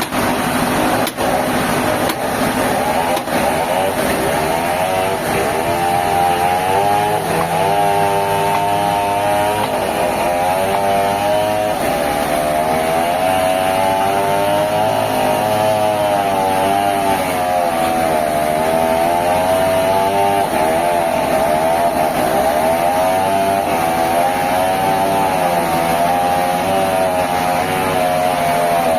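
Sawmill machinery running continuously: an engine or motor whose pitch wavers up and down throughout.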